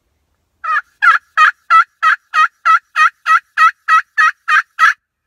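Turkey call run by hand as a long series of hen yelps: about fourteen loud, evenly spaced two-note yelps, roughly three a second, each breaking from a lower to a higher pitch.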